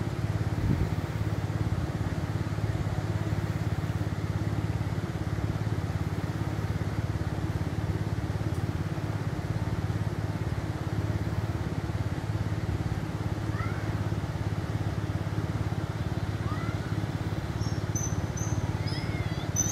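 An engine idling steadily, a low, even hum, while traffic waits at the closed level crossing. Birds chirp a few times in the second half, more often near the end.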